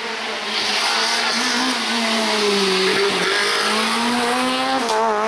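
Peugeot 206 rally car passing at speed on a tarmac stage, engine held at high revs, with the pitch dipping briefly about three seconds in and climbing again, over loud tyre and road noise.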